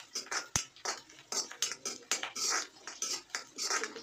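Metal spoon scraping and clinking against an iron kadhai while stirring food frying in oil, in quick repeated strokes, with a sharp clink about half a second in.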